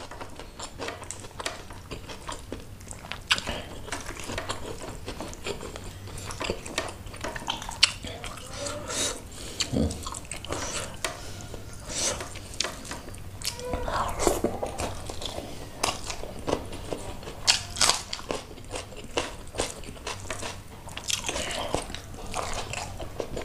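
Close-miked chewing and mouth sounds of a person eating rice and fish-head curry by hand: a steady run of wet smacks and clicks, with a few short murmured hums in between.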